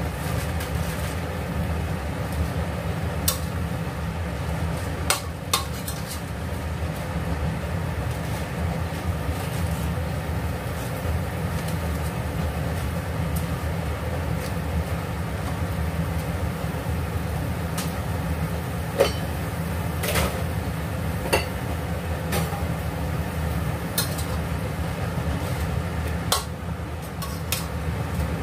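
Metal tongs and utensils clinking and scraping against a stainless-steel pan of cabbage every few seconds, over a steady low hum.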